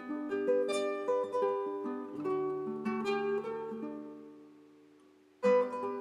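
Instrumental background music with a plucked-string melody. The notes fade out about four to five seconds in, then the tune comes back in loudly shortly before the end.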